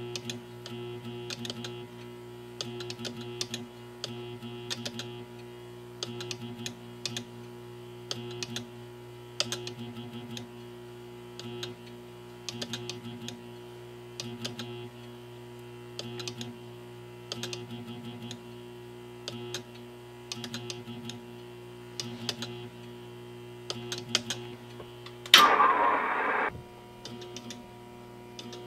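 Morse code being sent on a Johnson Valiant tube transmitter: its high-voltage power transformers hum with each keyed dot and dash, alongside the clicks of the telegraph key. Near the end a loud burst of hiss lasts about a second.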